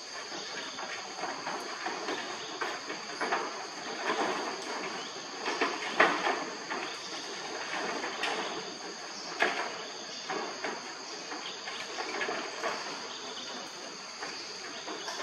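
Steady high-pitched drone of insects, two unbroken buzzing tones, with irregular scratchy rustles and clicks over it, the sharpest about six seconds in and again about nine and a half seconds in.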